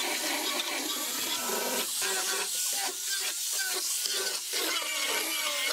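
Angle grinder with a sanding disc sanding pallet-wood boards: a steady hiss of abrasive on wood over the motor's whine, which wavers in pitch as the disc is pressed and eased.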